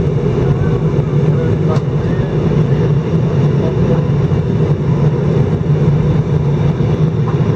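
Steady cabin noise inside an Airbus A319 airliner in flight: engines and airflow making a constant low drone.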